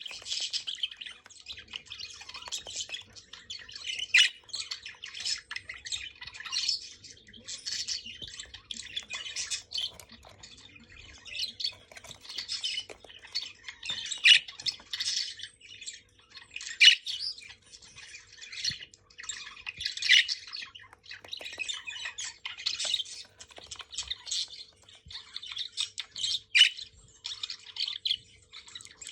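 Several budgerigars chirping and chattering continuously, with rapid warbling calls and louder squawks every few seconds, a female among them.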